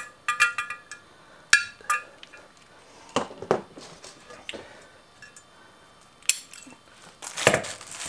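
Metal clinks and clicks of lock wire and pliers against the bolt heads of a two-piece brake rotor while it is being safety-wired. There is a quick run of clinks with brief ringing at the start, sharp clicks about one and a half and two seconds in, softer fiddling, and a louder rustle near the end.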